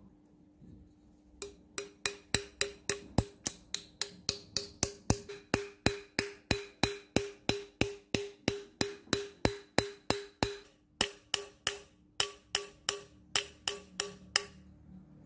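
Hammer driving a steel pivot pin into the frame of a cast-iron pipe wrench: quick, ringing metal-on-metal taps, about three a second, starting a second and a half in and stopping just before the end, with a couple of short pauses.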